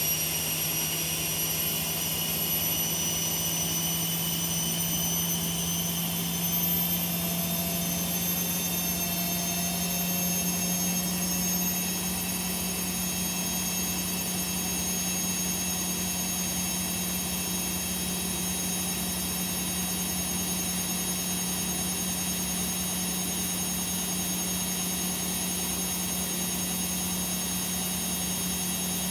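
Washing machines in their spin cycle, drums turning at high speed: a steady hum with high motor whines that climb in pitch over the first dozen seconds, then hold steady.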